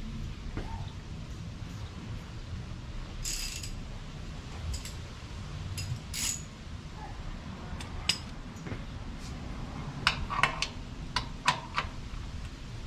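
Metal tools clinking, then a quick run of sharp ratchet clicks near the end as a socket wrench tightens the engine sump drain plug on an air-cooled Porsche 911 SC.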